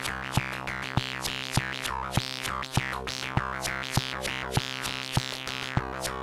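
Electronic music played live on a Korg volca drum and an Arturia MicroFreak synthesizer. Sharp percussive hits fall about every 0.6 seconds over a steady held synth tone, with bright sweeps falling in pitch between the hits.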